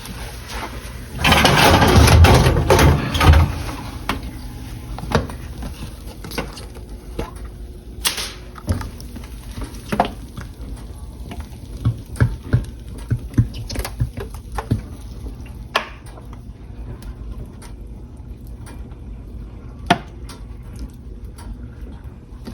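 Barbecue sauce poured out of a bottle onto ribs in a pan: a loud gush lasting about two seconds near the start, then scattered light knocks and taps.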